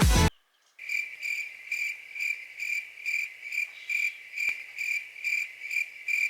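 Cricket chirping: one steady high-pitched chirp repeated evenly, about two and a half times a second.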